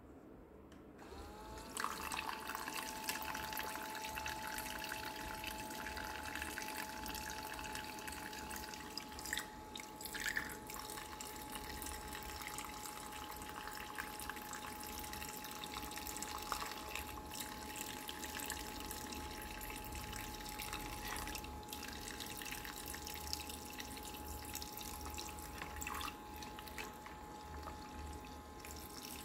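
Toy kitchen sink's small electric pump starting up about a second and a half in, its whine rising and then holding steady. Water trickles from the toy faucet into the plastic basin throughout, with a few light knocks of plastic dishes being handled.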